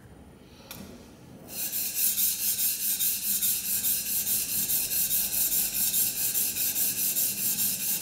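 A Record No. 4 plane iron is honed freehand on an oiled Norton Crystolon silicon-carbide combination oil stone. Fast back-and-forth strokes make a rhythmic scraping of steel on stone, about six strokes a second, beginning about a second and a half in.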